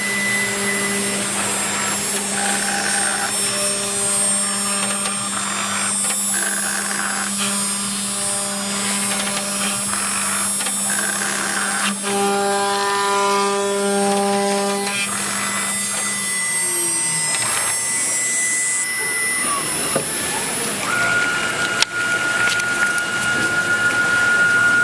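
BCM1520 CNC router running: a steady machine hum and high whine, with motor tones that jump to a new pitch every second or two as the machine changes speed and direction. About 21 seconds in, a single steady higher tone takes over.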